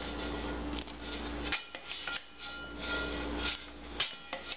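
A long metal spoon scraping and clinking against a stainless steel bowl and a pot as diced raw potatoes are scooped out and lowered into boiling water, with short sharp knocks scattered through.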